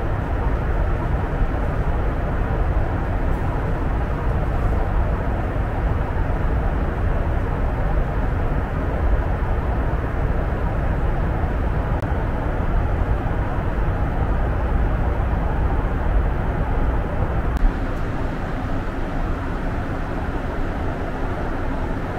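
Steady cabin noise of a Boeing 737 MAX 8 at cruise altitude, heard from inside the cabin: an even rush of airflow over the fuselage with engine drone beneath it. The low rumble drops slightly about eighteen seconds in.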